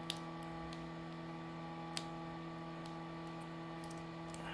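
A few small clicks and ticks of the phone's parts being handled and seated, two sharper ones near the start and about two seconds in, over a steady electrical hum.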